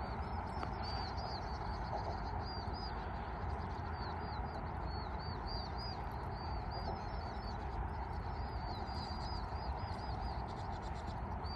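Small birds chirping: many short, high, arching notes in quick clusters, over a steady rushing background noise.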